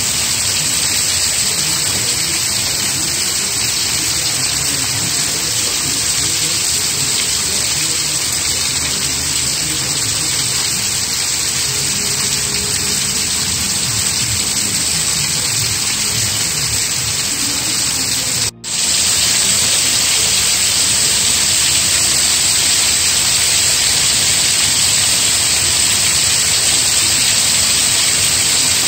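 Rain falling steadily, a dense even hiss. The sound cuts out for an instant about two-thirds of the way through, then carries on as before.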